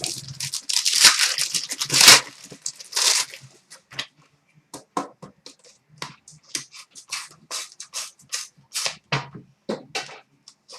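Trading card pack wrappers torn open in a few loud rips, then cards slid and flicked through in a run of short, quick strokes.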